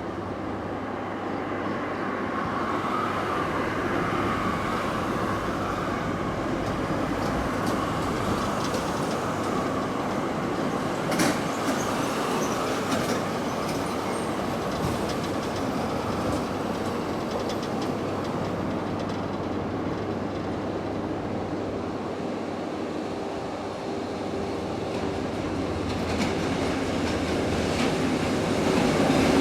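Freight train behind an EF66 electric locomotive rolling past over the rails: a steady rumble with clickety-clack from the wheels crossing rail joints, one sharp clank about eleven seconds in, and growing louder near the end.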